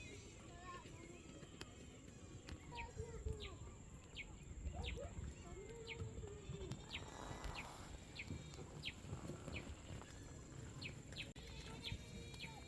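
Faint outdoor ambience of birds chirping: short, high, falling peeps repeating irregularly throughout, over a steady high-pitched tone and low rumble.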